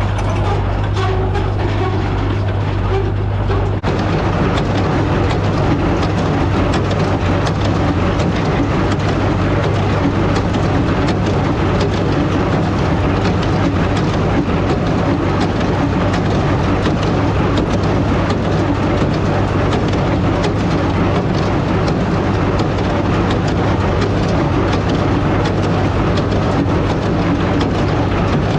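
John Deere 820 tractor pulling a New Idea square baler, running steadily under a constant low engine hum with the baler's rapid mechanical clatter.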